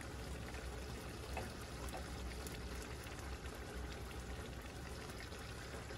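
A pot of frijoles puercos (beans with chorizo) bubbling at a low boil, a soft steady bubbling, with a couple of faint plops as cubes of cheese are dropped in.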